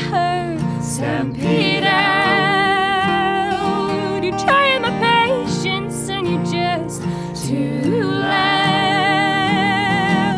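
Live acoustic folk music: two acoustic guitars strumming under several women's voices singing close harmony in long, wavering held notes.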